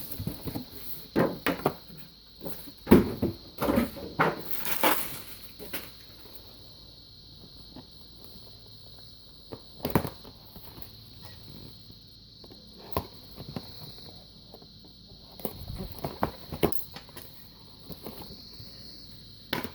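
Packaging being handled as a knife set is unboxed: scattered knocks, clicks and rustles, busiest in the first five seconds, with a few more about ten seconds and sixteen seconds in. A steady high-pitched tone runs underneath.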